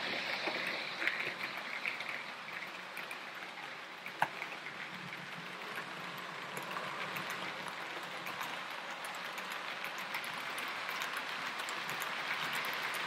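H0-scale model freight train of pocket wagons rolling past over a set of turnouts: a steady rattle of small metal wheels on the rails, with many light clicks at rail joints and frog gaps and one sharper click about four seconds in.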